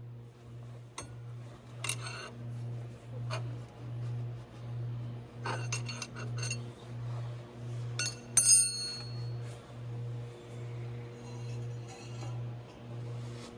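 Hand tools and bolts clinking against metal parts: a few sharp metallic clinks, the loudest ringing briefly about eight seconds in. Underneath is a steady low hum that pulses a little more than once a second.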